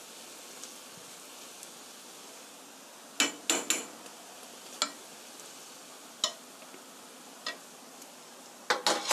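Spoon clinking against a frying pan in a series of sharp taps as garlic sauce is spread over a potato pancake, a cluster about three seconds in and another near the end. Under it the pancake sizzles steadily and softly in the pan.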